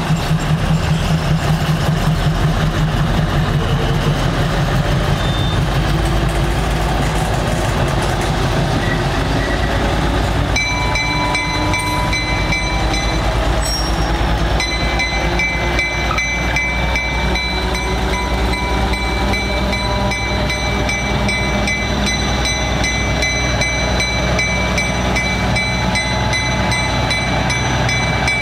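GE 40-ton switcher locomotive's Cummins diesel engine running as the locomotive moves slowly with a covered hopper car. About ten seconds in a steady high-pitched squeal joins the engine sound, stops briefly, then carries on.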